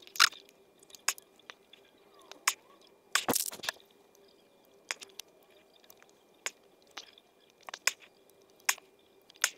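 Hand-sewing sequins onto a cotton T-shirt: irregular small clicks and fabric rustling from the sequins, needle and cloth being handled close to the microphone, with a brief denser scraping about three seconds in.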